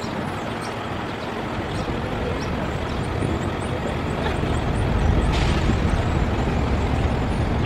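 Road traffic running past: a steady low rumble of engines and tyres, with a short hiss about five seconds in.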